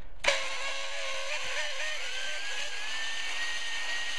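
Electric drill starting up and spinning a flex hone (ball hone) in a cast-iron cylinder bore of a Ford 351 Windsor block, its motor whine rising in pitch over the first couple of seconds and then holding steady. The hone is putting a plateau finish on the freshly honed cylinder wall.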